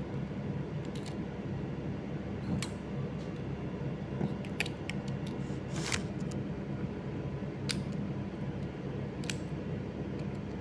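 A handful of small, sharp clicks and ticks from handling a CommScope RJ45 connector and Cat6 cable, spaced irregularly, over a steady low hum.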